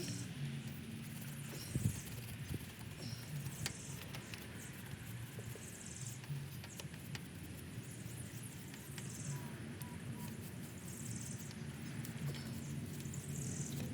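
Small hand wire brush scrubbing rusty U-bolt threads under the nuts of a truck's leaf spring, in irregular scratchy strokes with scattered clicks and one knock about two seconds in.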